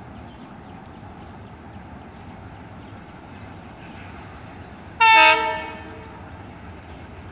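An approaching Bangladesh Railway diesel locomotive sounds one short horn blast about five seconds in, a chord of several notes that dies away within a second, over steady trackside background noise.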